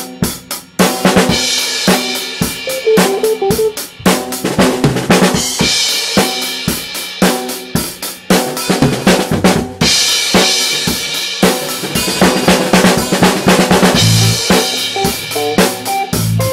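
Rock band playing live in a rehearsal: a drum kit drives a steady beat on kick, snare and hi-hat, with guitar and bass notes underneath.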